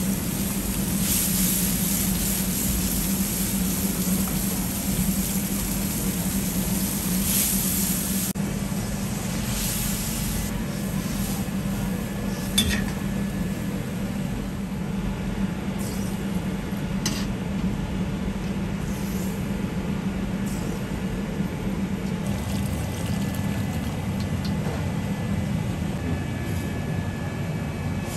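Cut long beans being stir-fried in a wok: sauce is poured in from a ladle and the beans are stirred through it over a steady low hum from the stove. One sharp metal clink comes about twelve seconds in.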